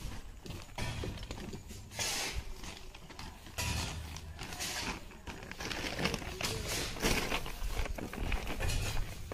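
Irregular crunching and rustling in separate bursts about a second apart. Footsteps over dry leaves and scraps of wood and bark give way near the end to hands working in crushed ice on a plastic sheet.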